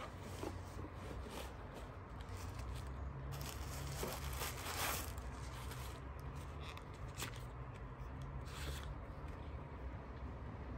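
Rustling and crinkling of a cloth dust bag and tissue paper as hands slide a leather sandal out and handle it. The handling comes in irregular bursts, loudest about four to five seconds in, over a steady low hum.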